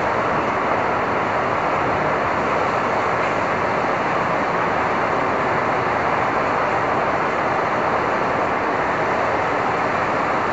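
Manhattan street ambience on a stormy day: a steady, even wash of city traffic noise with no single event standing out.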